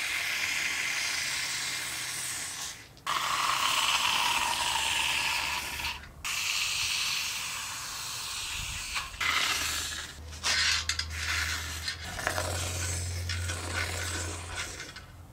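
Aerosol can of rust-encapsulating internal frame coating spraying through a thin extension wand into a body panel's inner channels. It makes a hiss in bursts of about three seconds that stop and restart, then shorter spurts in the last few seconds.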